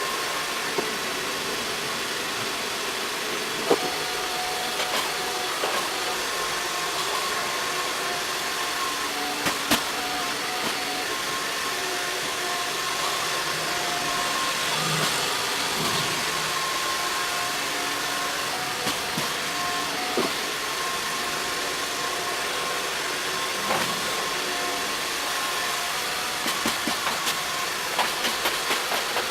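Robot vacuum running steadily, its motor whining at a few held pitches over a rushing hiss, with scattered sharp clicks as it sweeps up oats and powder. There is a cluster of clicks near the end.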